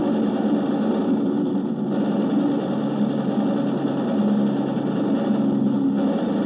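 Steady, even drone of a Lancaster bomber's piston engines in flight, several low tones running together with no breaks.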